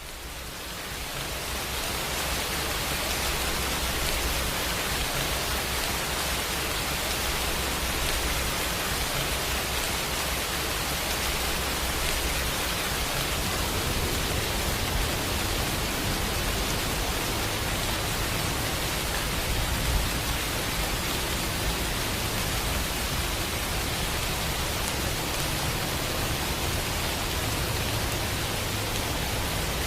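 Steady rain, an even hiss with no separate drops standing out, fading in over the first couple of seconds.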